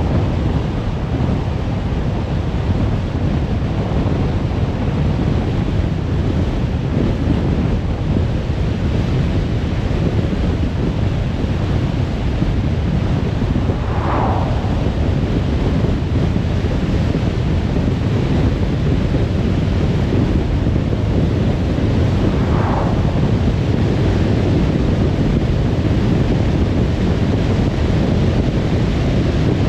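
Steady road and wind noise of a car driving on a motorway, a constant low rush. Two brief, higher swells rise out of it, about halfway through and again about three-quarters of the way in.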